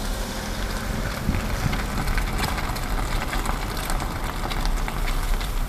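Car driving along a wet street, heard from inside the cabin: a steady low road-and-engine rumble with tyre hiss and scattered light ticks and clicks.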